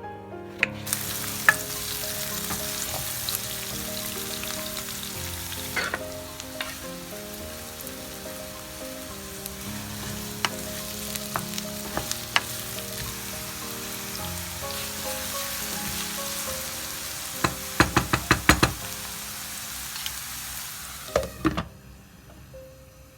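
Food sizzling as it fries in a pan, with scattered sharp taps and a quick run of taps a few seconds before the sizzle cuts off suddenly near the end. Soft piano music plays underneath.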